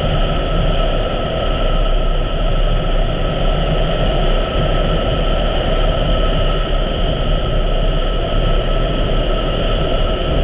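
2017 Honda Africa Twin's parallel-twin engine running at a steady cruise, under a steady rush of wind and road noise.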